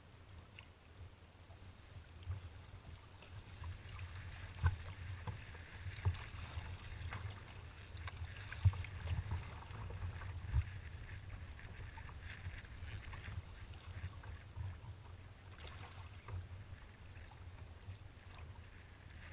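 Choppy water splashing and slapping against the hull of a moving kayak, with a few sharper slaps about five, nine and ten seconds in, over a steady low rumble.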